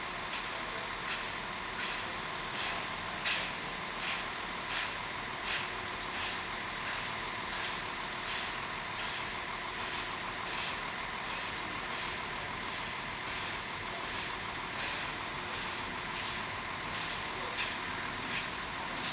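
Pt47 steam locomotive chuffing slowly and evenly, a little more than one exhaust beat a second, with a steady high tone underneath.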